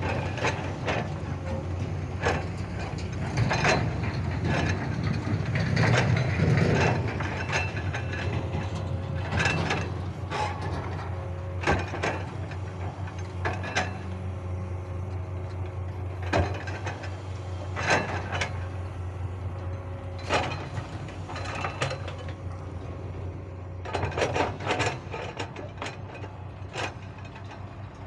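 Komatsu hydraulic excavator's diesel engine running with a steady low drone, with irregular metallic clanks and knocks as it digs soil and swings to load a dump truck.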